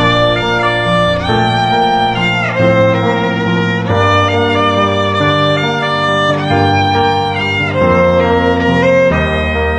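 Instrumental music: a slow melody of held notes that glide from one to the next, over sustained bass notes.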